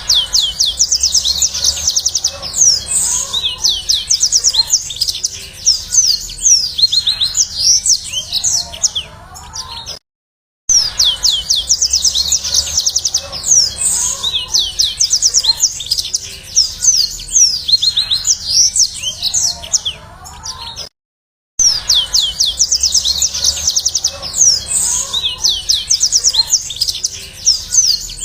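Yellow-fronted canary (Mozambique bird) singing a fast, continuous song of rapid high, quickly falling notes. It breaks off into silence twice, about ten and twenty seconds in, and the same song passage starts again each time.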